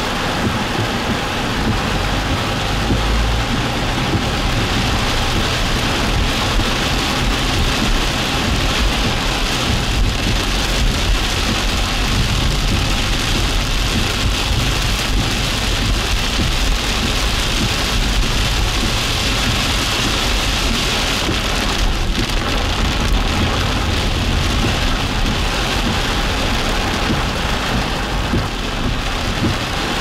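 Heavy rain falling steadily during a thunderstorm, with a low rumble underneath.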